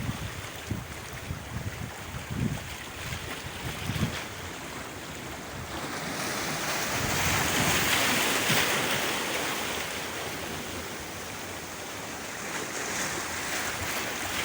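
Sea waves washing onto the shore, one wave swelling to a peak about halfway through and then drawing back, with wind buffeting the microphone.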